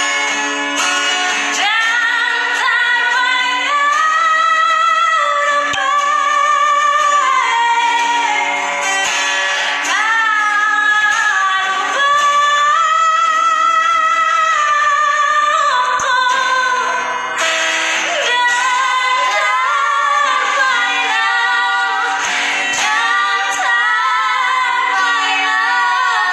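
A woman singing a slow song with long held notes, accompanied by an acoustic guitar.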